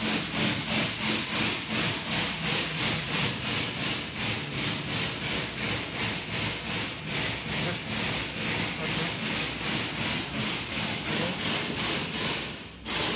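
Steady back-and-forth hand-sawing strokes, about three a second, with a short break near the end.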